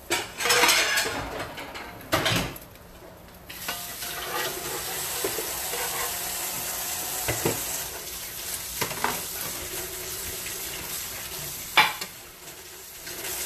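Cereal-crusted French toast frying in a nonstick pan, with a steady sizzle from a few seconds in. Loud clatter of a utensil against the pan at the start, and a sharp clink near the end as a slice is lifted out.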